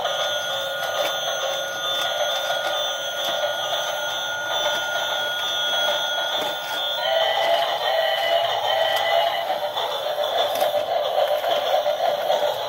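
Battery-operated toy trains playing electronic tunes and beeping tones over their running mechanisms. The tones shift to a different pattern about seven seconds in.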